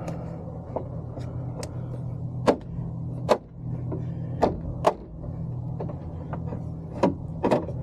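Hands working on the parts inside a truck door with the trim panel removed: about eight sharp, irregular clicks and knocks of plastic and metal, over a steady low hum.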